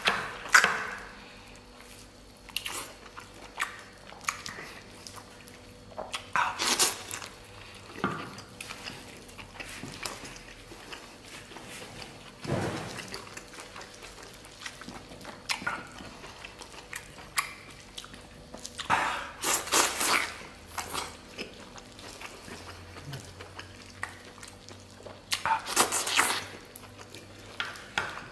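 Close-up eating sounds: chewing and mouth noises on tender stewed beef eaten by hand, broken by several louder short bursts, with light knocks of a steel dipping bowl.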